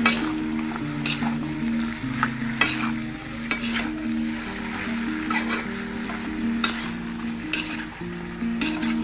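A spatula stirring and scraping pork and tomato pieces around a wok as they fry with a sizzle, with short scrapes about once a second. Background music plays underneath.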